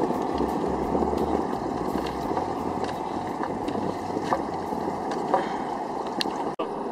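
Wind buffeting the microphone over water lapping against a small boat, a steady rushing noise with low rumbling gusts and a few faint clicks. It cuts out for an instant near the end.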